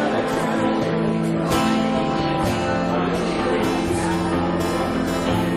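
Worship band music: strummed acoustic guitar playing sustained chords with a steady rhythm.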